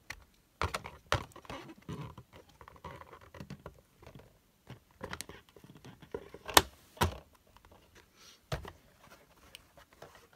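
Handling noises from a 1/16 scale RC rally car's hard plastic body shell: a string of clicks, taps and rustles as it is handled and set back on the chassis, with the sharpest knocks about six and a half and seven seconds in and another near eight and a half.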